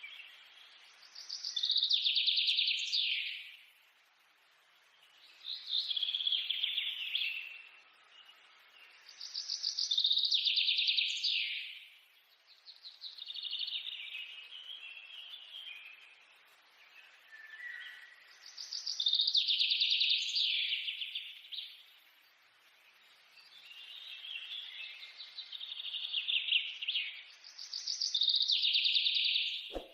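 A songbird singing the same rapid, trilled phrase over and over, about one phrase every four seconds.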